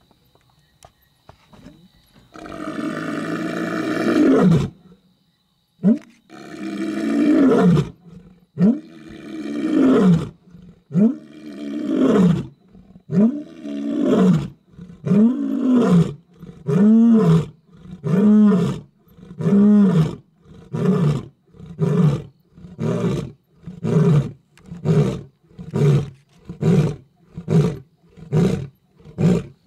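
Male lion roaring close up: a long low moan about two seconds in, then full roars that grow shorter and come faster, trailing off into a long series of short grunts about one a second.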